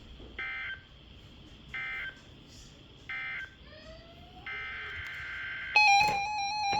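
Emergency Alert System end-of-message signal: three short squawks of digital data tones about a second and a half apart, marking the end of the alert. About four and a half seconds in, a steadier data tone starts, and from about six seconds a louder string of shifting two-tone beeps like telephone touch-tones.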